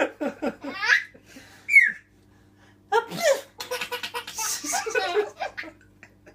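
Baby giggling and giving a short high squeal, then after a brief pause an adult sneezes loudly about three seconds in, and the baby answers with a run of hearty belly laughs.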